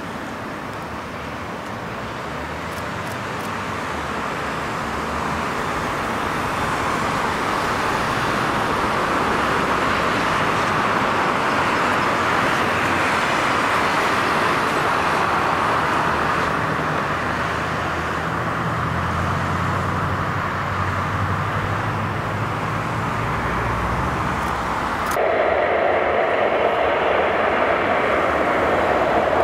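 Jet engine noise from a Boeing P-8A Poseidon's two CFM56 turbofans as it taxis and turns away, swelling over the first several seconds and then holding steady. About 25 seconds in it switches abruptly to a steadier, lower jet engine hum.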